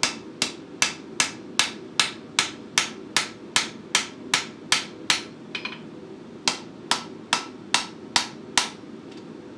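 Hand hammer striking the red-hot edge of a heavy steel plate on an anvil, forging a bevel along its long edge: a steady run of sharp blows at about two and a half a second, a break of about a second past the middle, then six more blows. A steady low hum runs underneath.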